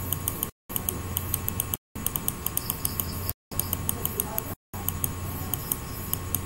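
Computer mouse scroll wheel clicking in quick runs, about five light clicks a second, over a steady electrical hum and hiss. The sound cuts out to silence for a moment four times.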